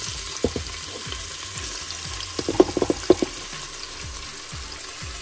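Diced onion sizzling steadily in hot olive oil in a Cookeo multicooker pot preheated on its browning setting. A few sharp knocks come about half a second in and a quick cluster of them around two and a half to three seconds in.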